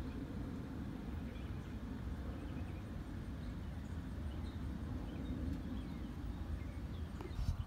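Steady low outdoor rumble with a few faint high chirps, and a couple of soft knocks near the end.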